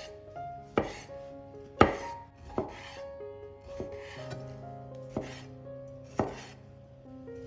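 A kitchen knife cutting food on a cutting board: several sharp, uneven knocks, the loudest about two seconds in, over soft instrumental background music.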